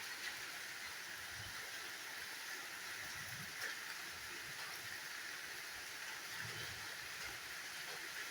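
Waterfall running with a steady, even rushing hiss of falling water.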